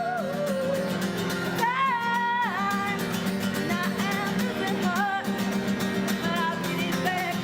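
A woman singing a melody with held, gliding notes over a strummed acoustic guitar, performed live.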